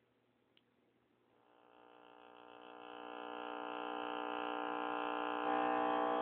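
Steady buzz from a 1961 RCA CTC-11 colour tube TV's speaker, fading in over a few seconds as the set's tubes warm up after switch-on. It gets louder about five and a half seconds in, then cuts back sharply at the end.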